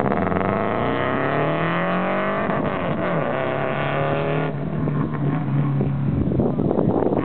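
Subaru Impreza RS's flat-four engine accelerating hard, its revs climbing over the first three seconds. About four and a half seconds in, the note drops and turns duller as the car pulls away down the course.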